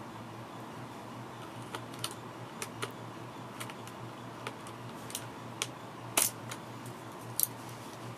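Irregular sharp plastic clicks and clacks from handling a Filco Majestouch 2 mechanical keyboard and its keycaps, about a dozen scattered clicks, the loudest about six seconds in.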